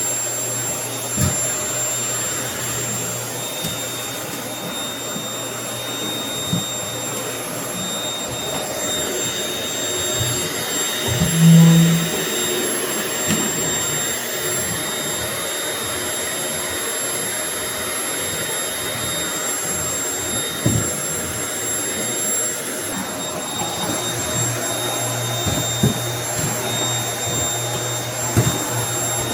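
Household vacuum cleaner running steadily on a floor, a constant motor hum with a high whine, and a few short knocks along the way, the loudest a little under halfway through.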